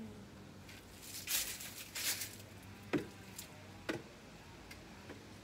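A person stepping up onto a small plastic step stool over dry leaves: two short rustling scuffs, then two sharp clicks about a second apart.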